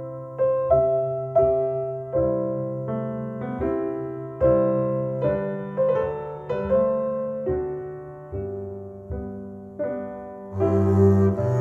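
Recorded piano music played back through Paradigm Persona 7F floorstanding loudspeakers driven by an Accuphase E-280 integrated amplifier: slow, evenly paced notes, roughly one every three-quarters of a second, each ringing and fading over a held bass. Near the end a bowed cello line comes in under the piano.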